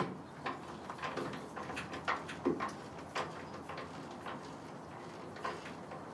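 Irregular metallic clicks and clinks from the steel tailgate support cable and its fastener on a 1987 Ford F-150 being handled and fitted at the bed side. The clicks come several a second in the first half and thin out later, with the loudest knock about two and a half seconds in.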